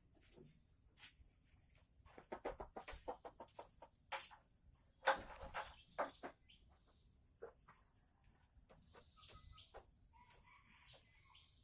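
Sumatran red junglefowl hen cackling in rapid runs of short clucks, the call that marks a hen about to lay an egg. A louder, harsher burst comes about five seconds in.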